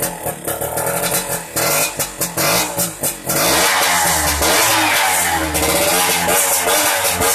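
Yamaha F1ZR's small two-stroke single-cylinder engine running: choppy and uneven for about the first three seconds, then revved continuously with the pitch rising and falling. It is being test-run after its broken throttle cable was replaced.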